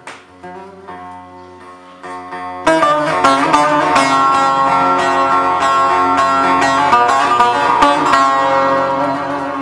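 Turkish folk instrumental opening: a soft held chord, then about two and a half seconds in, bağlama (long-necked saz) plucking comes in loud with the rest of the ensemble and carries on in quick strokes.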